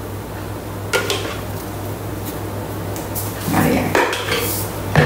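A spatula scraping bechamel sauce out of a stainless steel Thermomix mixing bowl, with sharp knocks of the spatula against the metal about a second in, several more near the end, and a steady low hum underneath.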